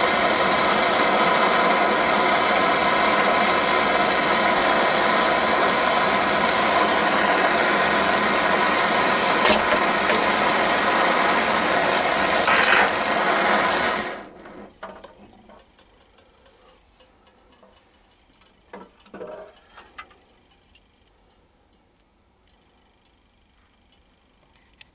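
Portable gas burner running with a steady rushing sound that cuts off abruptly about 14 seconds in as it is shut off. A couple of short sharp sounds come partway through, while the heated can is upended into the water and crushed. Afterwards there are only faint splashing and handling noises.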